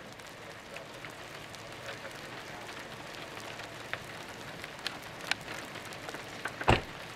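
Light rain from the thunderstorm's arriving core: a steady hiss with scattered drops ticking, and one louder knock near the end.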